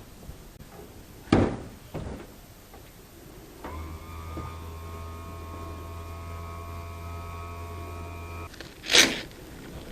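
An outboard's electric power trim and tilt motor runs steadily for about five seconds, a low hum with a whine above it that stops abruptly. Two sharp knocks come before it, and a louder knock follows just after it stops.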